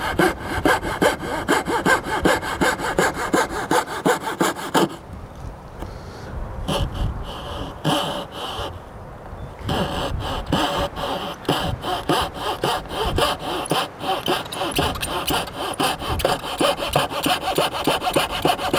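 Coping saw with a thin blade cutting by hand through MDF baseboard along a cope line: quick, even back-and-forth strokes, pausing briefly twice partway through.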